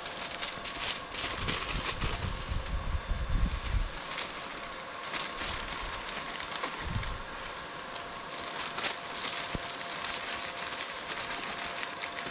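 Crackling rustle of handling noise, with low rumbling bursts of wind buffeting the microphone, strongest in the first few seconds and again briefly past the middle. A faint steady tone hums underneath.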